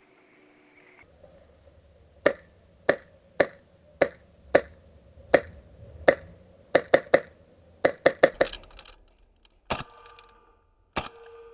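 Airsoft gun firing single shots, sharp cracks about two a second, then several quick shots in a row about eight seconds in, followed by a few spaced-out shots.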